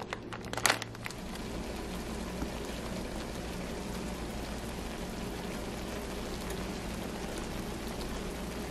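Broccoli frying in oil and liquid in a pan, giving a steady sizzle. A plastic bag of frozen green beans crinkles briefly in the first second.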